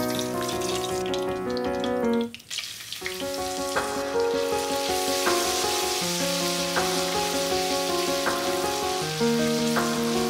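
Hot cooking oil sizzling in a pot, first with whole spices and then, after a brief dip about two and a half seconds in, more strongly as a chopped ingredient fries. Background music with held notes plays throughout.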